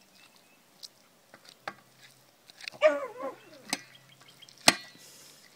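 A dog whines briefly about three seconds in, wanting the meat. Around it come a few sharp clinks of a metal fork against a stainless steel platter, the loudest one ringing near the end.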